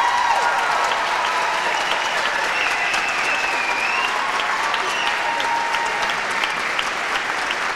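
Theatre audience applauding at the end of a dance number, steady clapping with shouts and whoops from the crowd over it.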